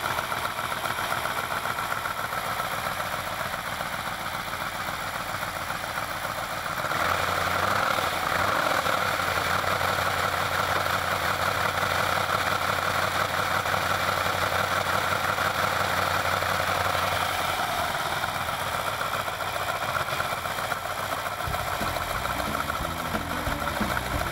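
Alfa Romeo Montreal V8 with Spica mechanical fuel injection running on its first test run after head-gasket and cylinder-head work. It gets louder about seven seconds in and drops back around seventeen seconds.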